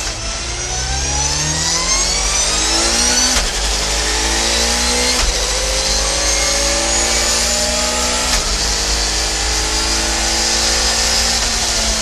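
Audi A4 Quattro Super Touring race car's two-litre naturally aspirated four-cylinder engine accelerating hard, its pitch climbing steadily. It shifts up through the sequential gearbox three times, each shift a quick drop in pitch before the climb starts again.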